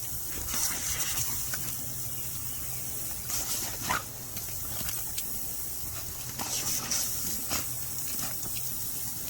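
Lawn sprinkler spraying water: a steady hiss with louder gushes of spray every few seconds.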